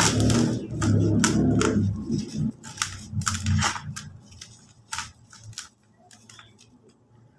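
Hands squeezing and crumbling dry cement chunks, crunching, with powder and crumbs pouring through the fingers. The crunching is dense for the first two seconds or so, then breaks up into scattered crackles and grows faint near the end.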